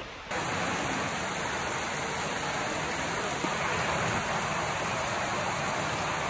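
Heavy rain pouring down steadily, a dense even hiss of drops on the ground and trees, starting abruptly just after the beginning.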